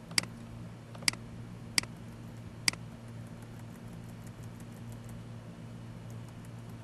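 Four sharp clicks of a computer mouse, roughly a second apart, then a run of faint ticks as its scroll wheel turns, over a steady low electrical hum.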